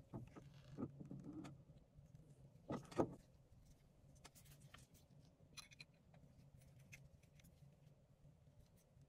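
Small clicks and knocks of metal fountain pen parts being pressed together in a pen press and handled, with a sharper double click about three seconds in, then faint ticks.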